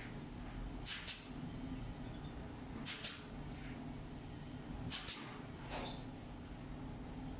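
Pneumatic clip gun firing, clipping galvanized wire cage panels together: three sharp double snaps about two seconds apart, over a faint steady low hum.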